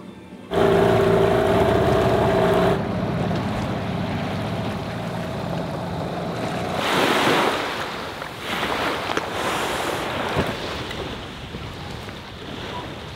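Small outboard motor running on a dinghy under way, a steady hum with wind buffeting the microphone, and a rush of water splashing past about seven seconds in. Near the end, small waves wash onto a sandy beach.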